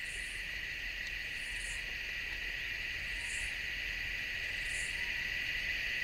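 Steady, high-pitched insect chorus with a fainter, higher chirp repeating about every second and a half.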